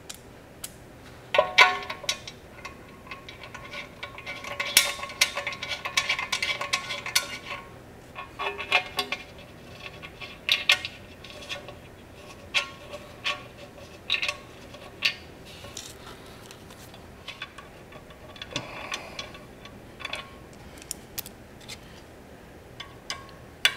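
Small steel bolts, washers and a hex wrench clinking and rattling against each other and against a metal motorcycle skid plate as the bolts are started by hand, with a dense run of jingling a few seconds in. Each click has a short metallic ring.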